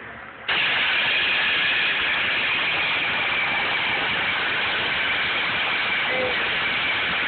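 Starter motor cranking a 3100 V6 engine, jumped straight at the starter with a screwdriver. It starts suddenly about half a second in, runs as a steady, even whir, and cuts off at the very end.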